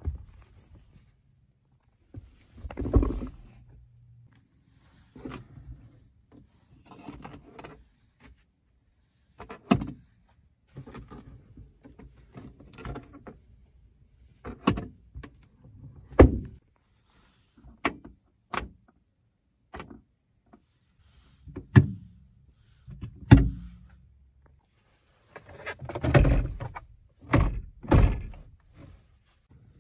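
Clicks, thunks and rustles from a 2007 Kia Picanto's interior fittings being worked by hand, among them the seat-back pocket and the sun visor with its vanity mirror. They come as a string of separate handling sounds with quiet gaps, the loudest thunks in the second half.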